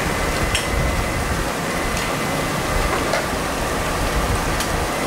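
Gas wok burner running with a steady rushing noise under a large wok of thick gravy being stirred with a ladle. A sharp click of the ladle against the pan about half a second in and again near the end.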